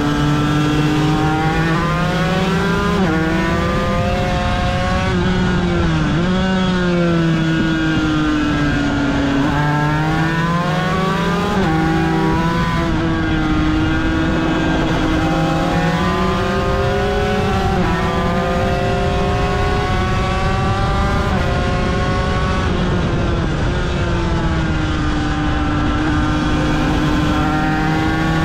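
Aprilia RS250's two-stroke V-twin racing engine recorded onboard at speed, its pitch climbing and dropping back several times with gear changes and braking, then holding steadier, over a rush of wind.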